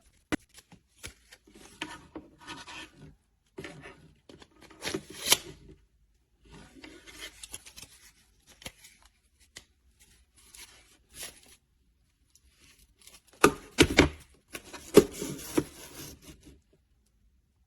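Hands handling a folding bike lock: irregular clicks, knocks and rubbing of its hinged metal links, with a louder cluster of knocks and scraping near the end before it stops.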